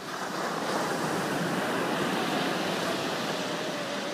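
Ocean surf: a wave breaking and rushing up the sand, swelling about half a second in and holding steady.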